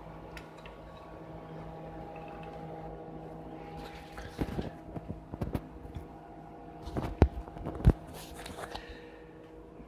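Parts of a disassembled thermal camera being handled: a series of knocks and clatters starting about four seconds in, the two sharpest near the end, over a steady background hum.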